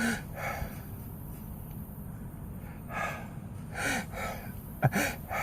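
A man's short, faint breaths and sniffs through a stuffy nose after a bout of repeated sneezing, about half a dozen spread across a few seconds.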